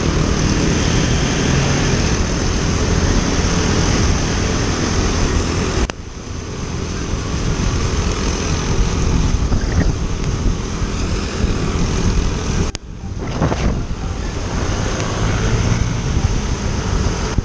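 Wind rushing over the microphone of a moving Yamaha Aerox scooter, with its engine and road noise underneath. The noise dips briefly twice, about six seconds in and again near thirteen seconds.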